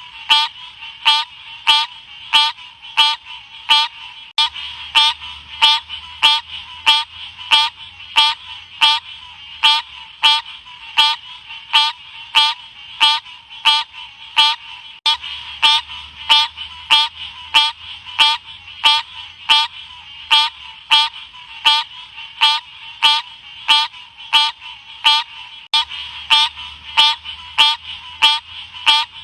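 Odorrana livida frog calling: short, sharp, high calls repeated evenly, about three calls every two seconds, without a break.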